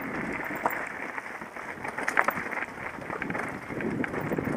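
Mountain bike riding fast downhill over a rocky dirt singletrack: tyres crunching over loose stones and the bike rattling, with scattered sharp knocks, the loudest about two seconds in.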